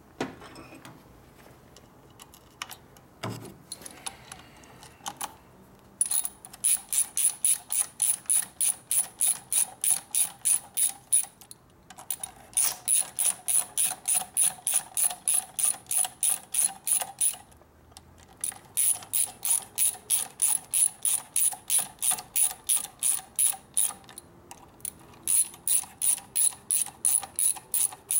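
Hand ratchet wrench being worked on a fastener, clicking evenly about four or five times a second in four long runs with short pauses between them. A few separate clicks and knocks come first.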